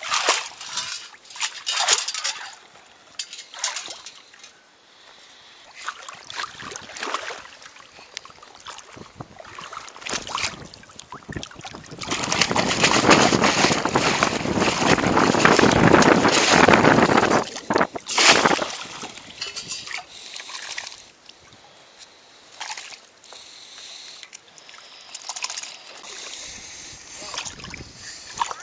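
Lake water splashing and sloshing as a perforated metal sand scoop is dug into the bottom and shaken to sift the sand. About halfway through comes a long stretch of hard, continuous churning that ends in a sharp splash.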